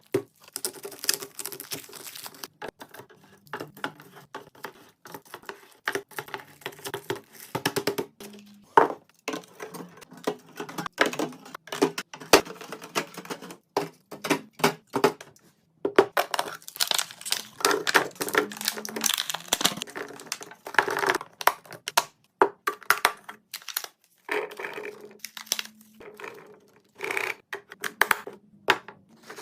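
Plastic packaging crinkling and rustling, with irregular clicks, taps and clacks of plastic containers and groceries being handled and set down while a refrigerator is restocked. A faint low hum comes and goes underneath.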